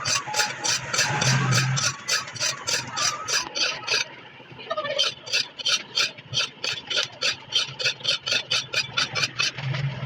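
A cleaver's blade being sharpened: fast, even scraping strokes of metal, about four to five a second, with a short break about four seconds in.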